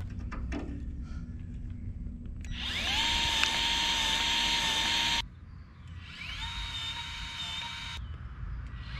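Milwaukee M12 cordless grease gun pumping grease into a fitting on the stump grinder: its small electric motor spins up with a rising whine, holds a steady pitch and cuts off sharply, twice. A few light clicks come before it.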